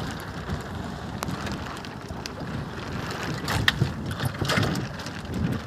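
Wind buffeting the microphone over water sloshing around a small fishing boat, with a few scattered sharp knocks, most of them past the middle.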